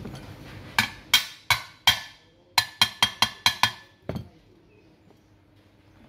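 Steel tool striking the metal parts of an electric water-pump motor: four sharp, ringing metal knocks, a short pause, then six quicker ones, ending in one duller knock about four seconds in.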